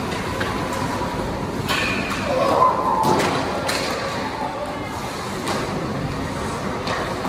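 Ice hockey rink noise: a steady background din with scattered sharp knocks and thuds, as of sticks and pucks striking the ice and boards, and a brief raised voice about two and a half seconds in.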